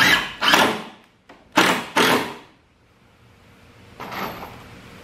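Cordless drill/driver running in four short bursts, in two pairs, as it drives a screw into the wood to pull a warped shelf board tight.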